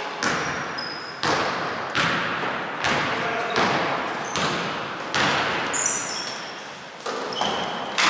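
A basketball being dribbled on a wooden gym court, a steady run of bounces a little more than one a second, each echoing in the large hall. Short high squeaks of basketball shoes on the floor come in between.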